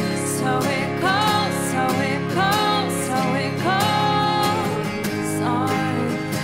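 Background music: a song with a sung melody over strummed acoustic guitar.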